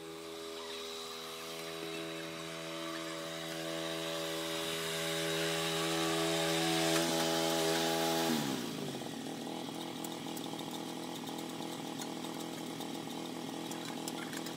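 Small petrol engine of a walk-behind cultivator (power tiller) running steadily and growing louder. About eight seconds in, it throttles back and its pitch drops to a slower, steady run.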